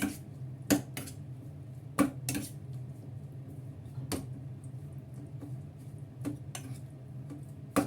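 Pork spare ribs being mixed with their marinade in a bowl, the bowl and utensil clinking sharply about seven times at irregular intervals, over a steady low hum.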